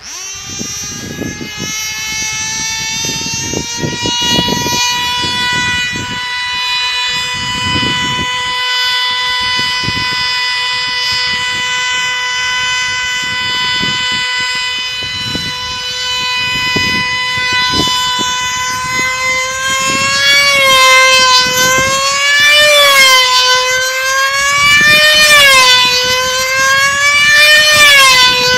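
High-pitched whine of F2D control-line combat model aircraft's small two-stroke engines running at full speed, rising in pitch over the first couple of seconds and then holding one steady note. From about twenty seconds in, the pitch swings up and down about every two and a half seconds as the models circle.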